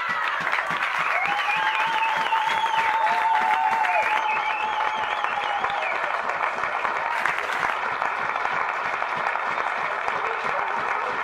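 Crowd applauding and cheering. In the first half one voice holds a long shout, with higher wavering cries above it.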